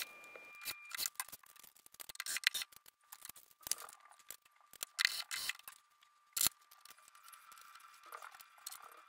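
Scattered small clicks and taps of metal bath hardware being handled and fitted: the toilet paper holder's mounting brackets and posts, and small screws. A sharper single click comes about six and a half seconds in.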